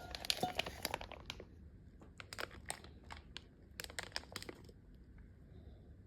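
Packaging crinkling and crackling as it is handled: a dense run of crackles in the first second and a half, then two shorter bursts of crinkling about two and a half and four seconds in.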